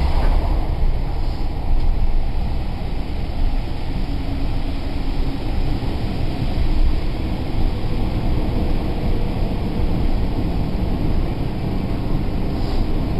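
Steady running noise inside a British Rail Mark 1 passenger coach on the move: wheels on the track and the coach body carrying a constant low rumble, with no distinct beats or engine note standing out.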